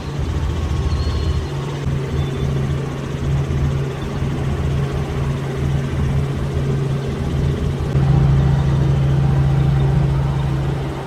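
Helicopter in flight, its engine and rotor making a steady low drone that gets louder about eight seconds in.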